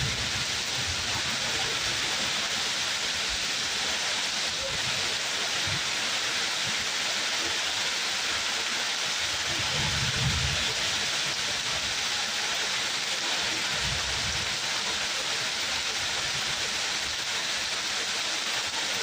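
Steady, dense rain falling, an even hiss with no letup. Two brief low rumbles rise under it, about ten and fourteen seconds in.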